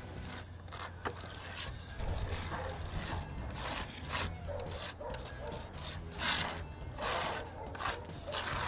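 Metal spatula scraping as it spreads plastic roofing cement over a crack in a concrete roof slab, in repeated strokes that get louder and come closer together, about two a second, in the last few seconds.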